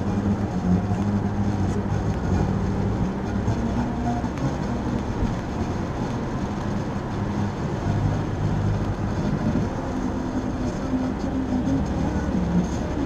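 Car driving at road speed heard from inside the cabin: a steady rush of tyre and road noise under a low engine hum whose pitch shifts a few times.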